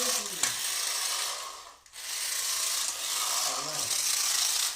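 Toy remote-control car's small electric motor and plastic gearbox whirring in two runs, stopping briefly about two seconds in.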